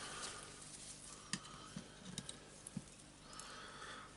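A few faint, sharp metal clicks and taps from two screwdrivers prying at an orbital sander's ball bearing housing, over quiet room tone.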